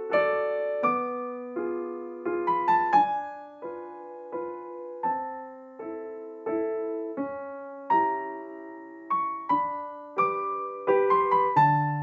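Background piano music: a gentle, unhurried melody of struck notes and chords, each fading away before the next, with a few quick runs of notes.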